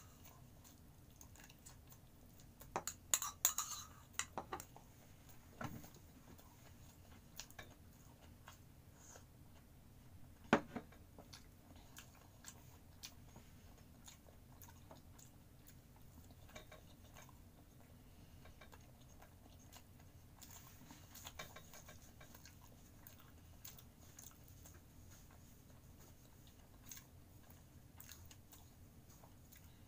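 Quiet chewing of breaded fried chicken bites, with scattered small mouth clicks. A cluster of clinks from a spoon against a ceramic bowl comes about three seconds in, and a single sharper knock about ten seconds in.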